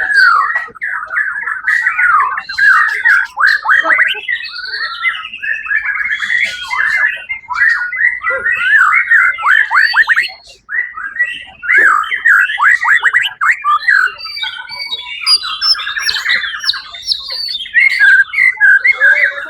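White-rumped shama (murai batu) singing a long, unbroken run of rapid, varied phrases full of quick down-sweeping notes, with a buzzy trill about three quarters through.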